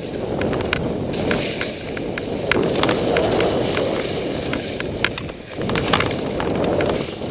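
Skis hissing through snow, rising and falling in level, with wind rushing over the microphone and a scatter of sharp clicks.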